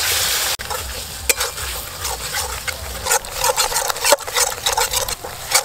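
Flat metal spatula stirring and scraping a thick spice paste around a metal kadai as the masala fries in hot oil. A loud steady sizzle cuts off sharply about half a second in, followed by quick, irregular scraping strokes of the spatula against the pan.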